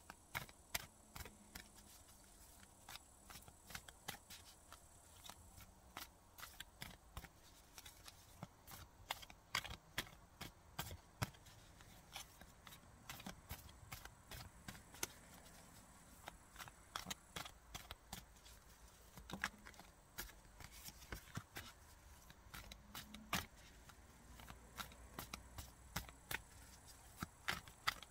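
A deck of tarot cards being shuffled by hand: a run of soft, irregular card clicks, several a second.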